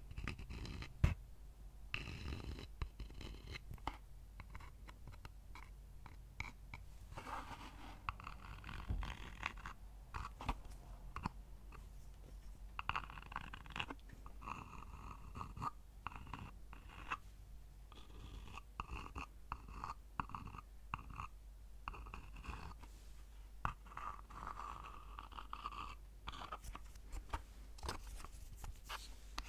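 Wooden money box handled close to the microphone: a small wooden piece tapping, clicking and scraping against the box's wood, with many light taps and a few short scratchy spells.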